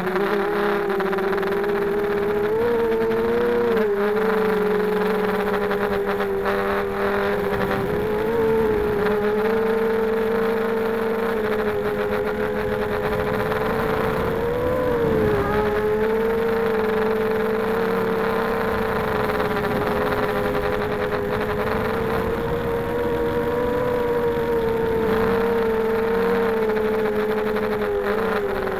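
Four RCX H1806 2400kv brushless motors of a 250-size FPV quadcopter spinning Gemfan 5x3 propellers in flight, recorded by the camera on its frame: a steady buzzing whine that dips and rises briefly with throttle changes several times.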